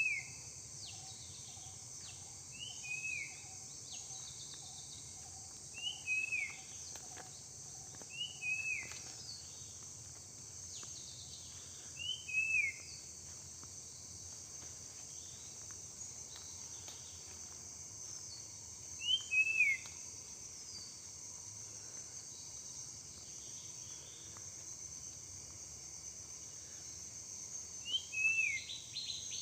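Steady high-pitched drone of crickets in a forest after rain, with a bird's two-note call (a short rising note then a falling one) repeating every few seconds.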